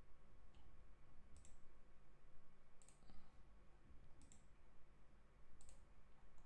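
Computer mouse clicking: four sharp, faint clicks about a second and a half apart over a faint steady hum, as points are picked while drawing a spline in CAD software.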